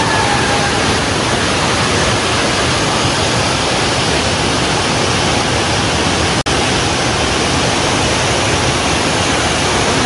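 Tirathgarh waterfall: water pouring down a stepped sandstone cliff face, a steady loud rush. The sound cuts out for an instant about six and a half seconds in.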